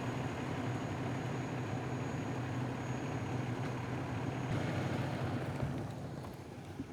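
An engine running steadily with a low hum, dropping a little in level near the end.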